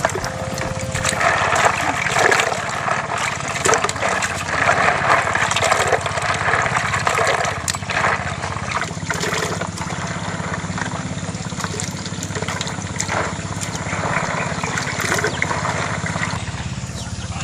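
Water splashing and sloshing in irregular bursts, over a steady low hum.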